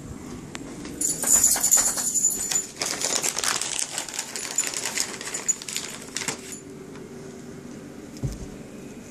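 Jingling, clicking and crinkly rustling for about five seconds as a bag of dog treats is handled and opened, dying away about two seconds before the end.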